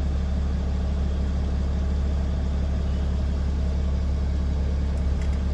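Mercedes-Benz G-Class engine idling with a steady, even low hum.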